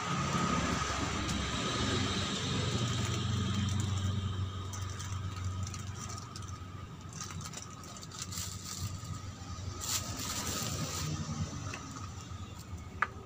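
Paper food wrapper rustling and crinkling as it is handled and opened, loudest in bursts in the second half. A low rumble runs under the first few seconds, and a single sharp click comes near the end.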